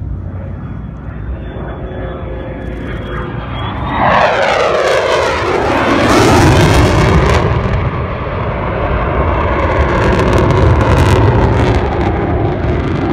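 Military jet engine noise, steady with a faint whine at first, then about four seconds in a much louder jet pass whose sound sweeps down and up in pitch, loudest around six seconds in, followed by a continuing loud rumble with crackle.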